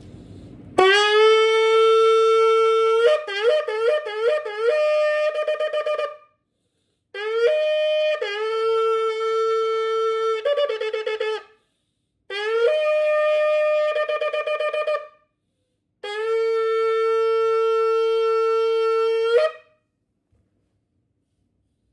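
A 22-inch ram's horn shofar blown in four blasts with short gaps between them: a clear, clarion double-toned call sounding on two notes. The first blast breaks into a quick warble between the two notes, and most blasts end with a jump up to the higher note.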